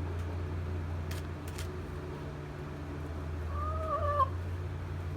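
A chicken giving one drawn-out call a little over halfway through, over a steady low hum and a few faint clicks.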